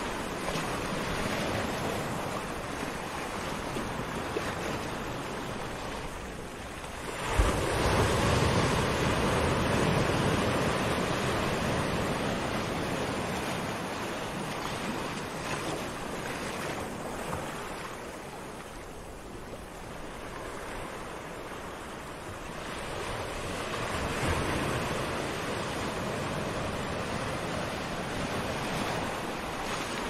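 Small waves breaking and washing up a sandy shore: a steady surf wash that swells loudest as a wave breaks about seven seconds in, eases off, and builds again in the last third.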